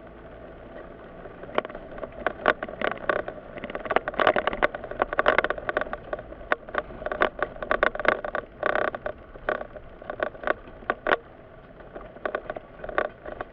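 Inside a Mitsubishi car driving slowly in traffic: a steady low cabin and road noise, with many irregular sharp clicks and rattles that come thickest a few seconds in and again in the middle.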